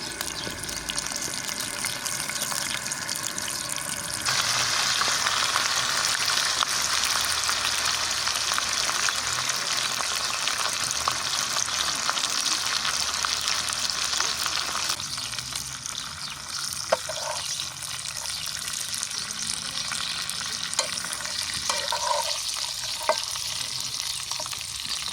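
Food sizzling as it fries in a pan, getting louder about four seconds in and dying down again about halfway through.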